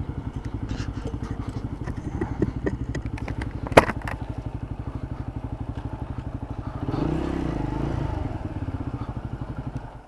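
Motorcycle engine running at low speed with an even pulsing beat, with one sharp click about four seconds in. The engine swells briefly a little past the middle, then cuts off suddenly at the end.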